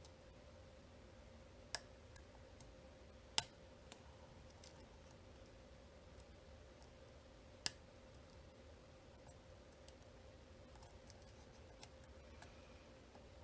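Lock picking on a 9-pin dimple cam lock: small metallic ticks from the pick and tension tool working the pins, with three sharper clicks about 2, 3.5 and 8 seconds in, over a faint steady hum.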